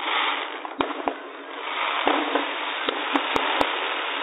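Fireworks going off: about seven sharp bangs over a steady hiss, with three quick reports close together near the end.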